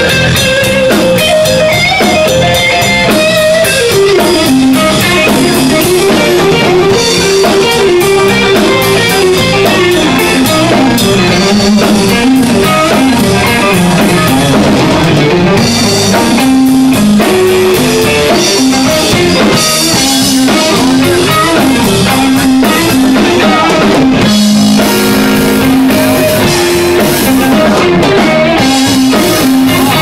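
Live blues band playing: electric guitar lines over a drum kit and electric bass.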